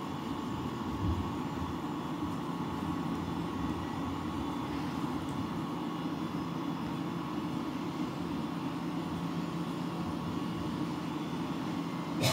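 Steady mechanical hum of a running room appliance, even in level throughout, with a faint steady tone above it.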